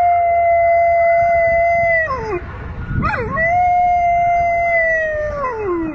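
A dog howling: one long, steady howl that drops in pitch and breaks off about two seconds in, a short rising-and-falling cry about three seconds in, then a second long howl that slides down in pitch at the end.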